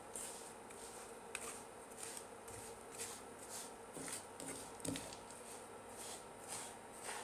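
Wooden spatula stirring and scraping a dry, crumbly mix of crushed peanuts and powdered sugar around a non-stick pan. Faint, rhythmic strokes about twice a second, with one louder knock about five seconds in.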